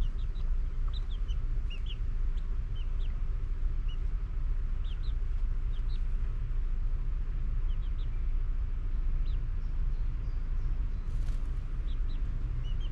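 Scattered short, high bird chirps over a steady low rumble.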